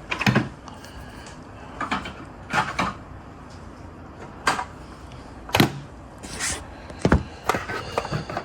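Scattered clicks and knocks of a model bus being handled, set down and the next one picked up; the loudest knock comes about five and a half seconds in.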